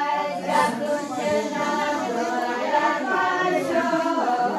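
A group of voices singing together, several lines overlapping at once.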